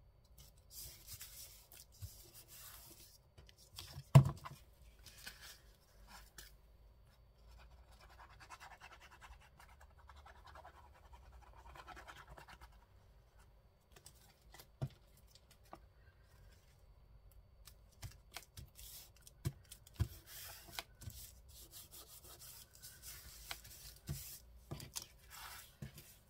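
Paper being handled and rubbed on a craft table: soft scratchy rustling in patches, broken by a few sharp knocks, the loudest about four seconds in.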